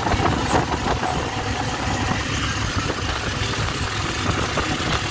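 Steady engine and road noise of a moving vehicle, heard from inside it.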